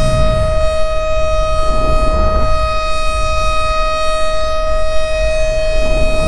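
Civil defense siren sounding a test, a loud steady tone held at one pitch with a low rumble beneath it.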